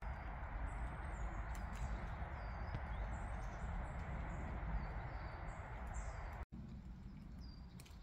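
Woodland ambience: a steady rushing hiss with many short, thin, high-pitched calls of small birds scattered through it. The background drops abruptly and comes back quieter about six and a half seconds in.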